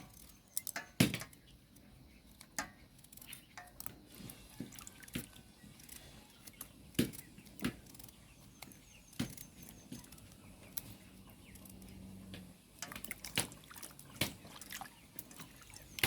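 Knife cutting up pumpkin: scattered sharp clicks and knocks at irregular spacing, a few louder ones about a second in, around seven seconds and near thirteen seconds.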